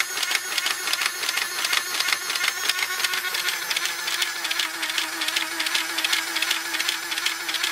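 Nerf Automatic Tommy 20 dart blaster's motorised firing mechanism running with the shell opened: the gearbox motor drives the piston and ratchet in a rapid, even clicking. A steady hum joins about three and a half seconds in.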